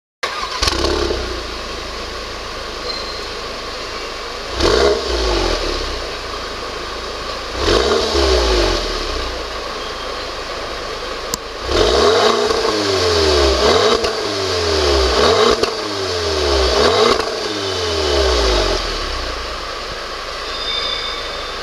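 Audi TT (8S) engine breathing through an aftermarket Remus exhaust, idling and being revved: two single throttle blips, then a run of about five quick revs one after another before it settles back to idle. A sharp click comes just before the run of revs.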